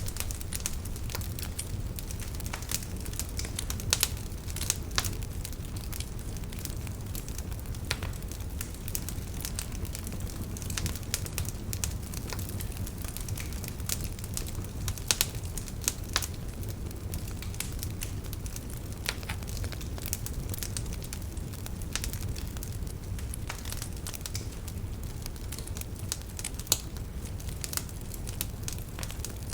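Wood fire burning in a fireplace: a steady low rumble of flame with irregular sharp crackles and pops, a few louder pops scattered through.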